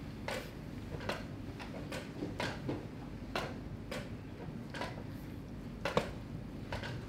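Wooden chess pieces being set down on the board and chess clock buttons being pressed during a blitz game. About a dozen sharp clicks and knocks come in quick succession, the loudest a clock press about six seconds in.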